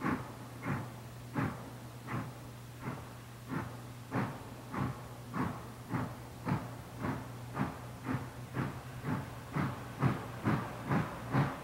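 Steam locomotive exhaust chuffing, the beats getting gradually faster, from under two a second to about two and a half a second, as the engine gathers speed. A steady low hum runs underneath.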